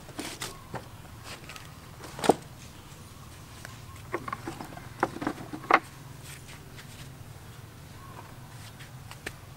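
Scattered sharp knocks and clatters of split firewood sticks being handled in a bucket, loudest about two seconds in and in a quick cluster around the middle, over a faint steady low hum.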